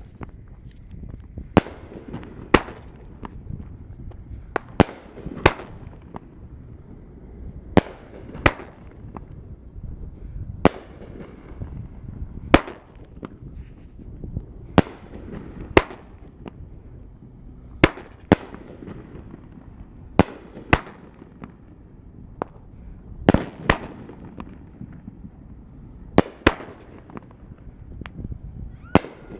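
A 500 g firework cake, TNT Pro Golden Willow, firing shot after shot: sharp bangs, mostly in pairs about every two to three seconds, each pair the thump of a shell launching from its tube and then its burst in the air, with a low rumble lingering between shots.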